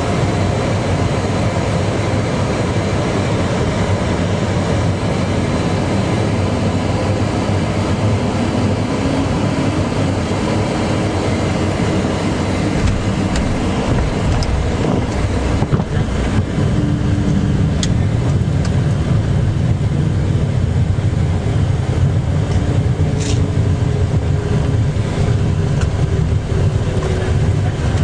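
Steady engine and rushing-air noise inside a private jet's cabin, with the low rumble growing stronger about halfway through and a few faint clicks.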